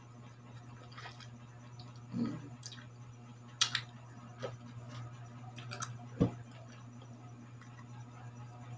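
A person chewing slices of sour, unripe mango, with wet mouth sounds and a scattering of short sharp clicks and smacks, over a steady low hum.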